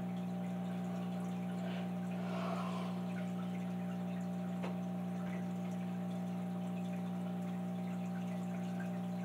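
Steady hum made of several fixed low tones, with one faint click about halfway through.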